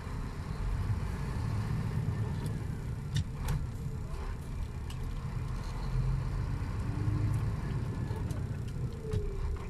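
Semi-truck's diesel engine running at low speed, heard from inside the cab as the truck rolls slowly. A few sharp clicks from the cab about three seconds in.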